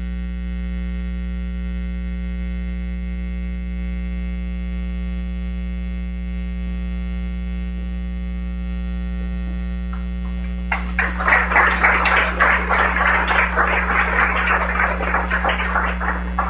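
Steady electrical mains hum throughout. About eleven seconds in, a room of people breaks into applause for about five seconds.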